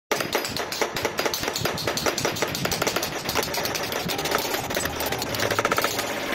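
Several craftsmen tapping steel chasing punches with small hammers to emboss copper sheet, a dense, rapid clatter of overlapping metal taps.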